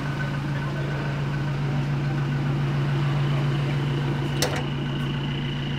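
A vehicle engine idling with a steady low hum, with a single short click about four and a half seconds in.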